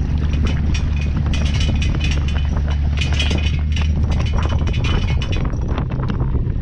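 Kayak trailer under tow, its frame and the loaded gear rattling and clanking over and over, over the steady low rumble of the tow vehicle.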